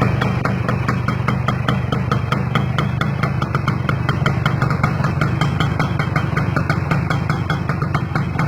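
Kawasaki GTO motorcycle's two-stroke single-cylinder engine idling steadily, with a fast regular ticking running through it.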